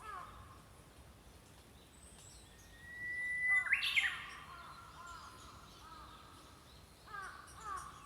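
Small songbirds singing: a long whistled note, then a loud, quick climbing phrase about halfway, followed near the end by a run of short, repeated chirps, several a second.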